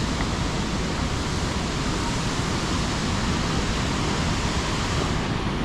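Steady rushing roar of water pouring over the Krka waterfalls.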